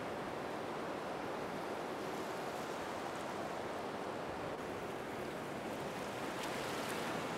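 Steady rain falling on a shallow puddle and wet pavement: an even, continuous patter.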